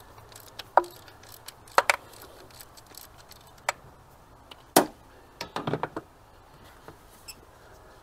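Scattered sharp metallic clicks and clinks from a ratchet wrench undoing the small 10 mm fuel-rail bolts, the loudest about five seconds in. A quick run of ratchet clicks follows just after.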